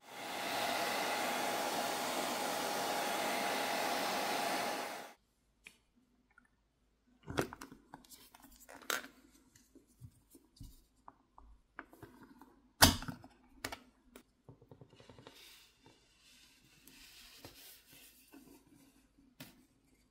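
Hair dryer blowing steadily with a faint whine, heating the phone's back plate to soften the adhesive, and stopping about five seconds in. After a short silence come scattered small clicks and scrapes, with one sharp snap about thirteen seconds in, as a pry tool works the Google Pixel 9's back glass free of its adhesive.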